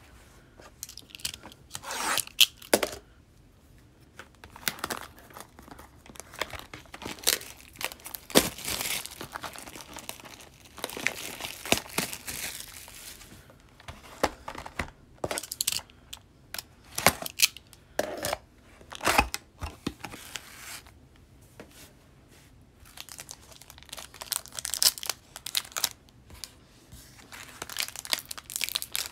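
O-Pee-Chee Platinum hockey hobby box being opened by hand, then its foil card packs being torn open. The sound is irregular tearing and crinkling of wrapping, with sharp snaps and rustling.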